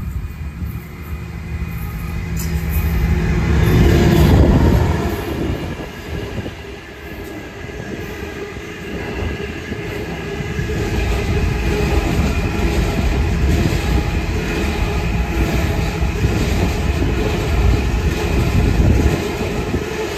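Freight train passing close by, with hopper and tank wagons rolling past. The rumble builds to its loudest about four seconds in as the head of the train goes by, then settles into a steady rumble of wagon wheels with a high wheel squeal and clatter over the rail joints.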